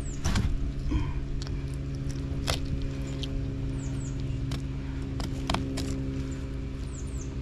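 Fillet knife working along a black drum's backbone on a stainless steel table, with a few sharp clicks of the blade against bone and thick scales. A steady low mechanical hum runs underneath.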